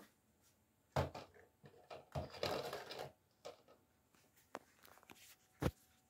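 Handling noise from a handheld camera: a dull knock about a second in, a rustling scrape from about two to three seconds in, a few light clicks, and a sharp knock near the end.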